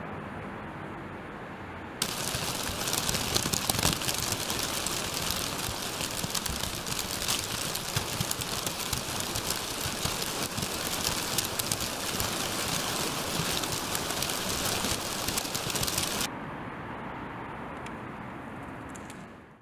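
317 paper bags crinkling and rustling together, each shaken by its own small DC motor, in a dense, even crackle. For about the first two seconds and the last three it is quieter and duller, heard from outside the steel shipping container that holds the bags.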